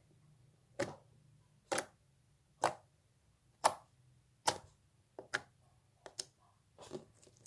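A tub of slime being handled: a run of about ten sharp clicks and pops, roughly one a second, coming in quicker pairs near the end.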